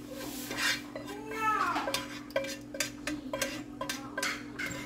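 A utensil stirring a thick mixture in a bowl, with repeated clinks and scrapes against the bowl.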